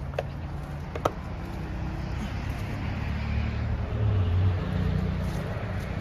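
Low engine rumble of a motor vehicle, swelling to its loudest about four seconds in and then easing, like a vehicle passing. Two sharp clicks come in the first second or so.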